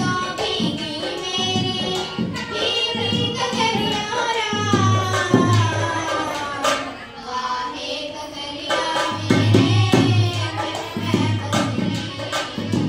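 A young girl singing a Haryanvi folk song into a microphone, her voice sliding between held notes, over a drum accompaniment whose beats grow heavier about halfway through and again near the end.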